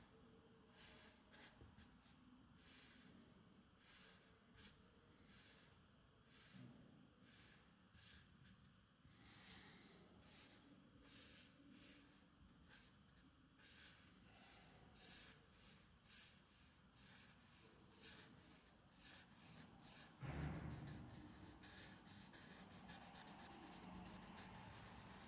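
Red Adel felt-tip marker scratching on paper as a patch is coloured in, in short back-and-forth strokes about one to two a second. A louder low rumble joins over the last few seconds.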